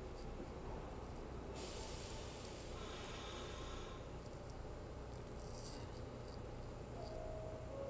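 R46 subway train pulling slowly into an elevated station: a faint, steady low rumble, with a burst of hiss from about one and a half to four seconds in and a short steady tone near the end.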